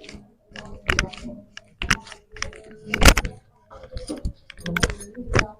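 A string of sharp clicks and knocks, irregularly spaced, from a hands-on chiropractic adjustment; the loudest comes about three seconds in.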